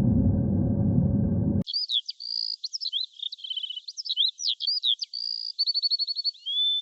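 A low rumbling noise that cuts off abruptly about a second and a half in. It gives way to a songbird singing a fast, varied song of high chirps, clear whistles and short trills.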